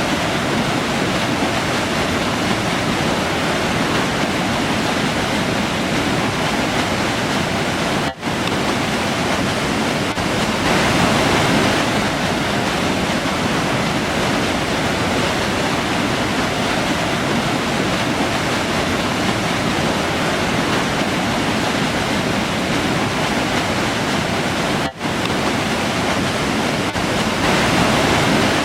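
River flowing, a steady dense rush of water, with two very brief dropouts.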